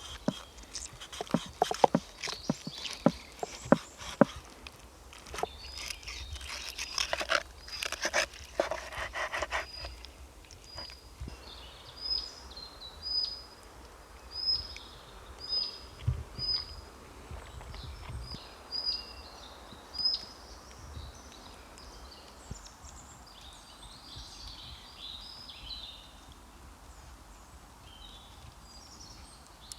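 A run of sharp clicks and knocks for the first several seconds. Then a bird repeats a short, high call that drops in pitch, about once a second, followed by fainter bird chatter.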